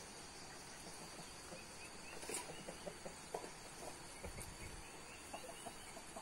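Chickens clucking now and then over a steady insect drone, with a brief sharp sound a little over two seconds in.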